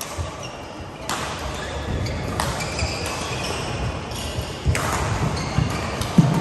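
Badminton rally: four sharp racket strikes on the shuttlecock, with short high squeaks of shoes on the court mat between them, echoing around a large hall.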